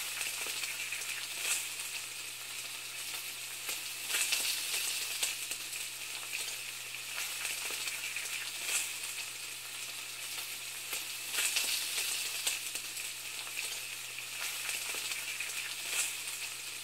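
Steady crackling, sizzling hiss with a louder crackle every few seconds, over a faint low hum.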